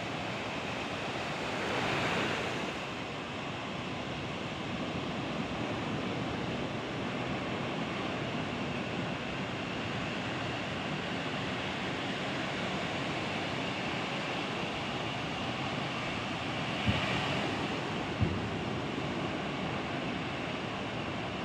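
Surf breaking on a beach in a strong wind, a steady wash with waves swelling louder about two seconds in and again near the end. Wind buffets the microphone, and two short sharp knocks come near the end.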